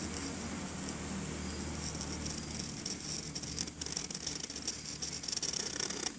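Felt-tip permanent marker scratching across paper as a line is drawn, over a steady low hum. The scratching gets busier in the second half.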